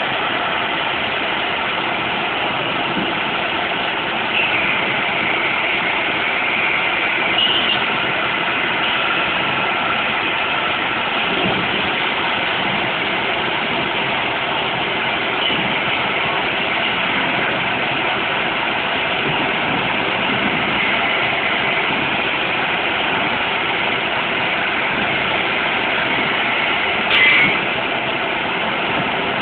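Adige LT120 laser tube-cutting machine running while it cuts a steel tube: a steady mechanical hiss and hum. A few short high hisses stand out, the loudest near the end.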